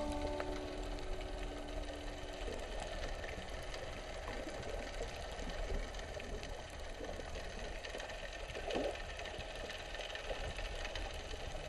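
Underwater ambience picked up through a camera housing: a low, muffled rumble with a fine crackling of clicks throughout. Held background-music notes fade out about two seconds in.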